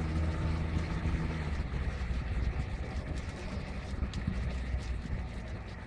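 Motorboat engine running, its steady note dropping away about a second and a half in and carrying on lower and quieter.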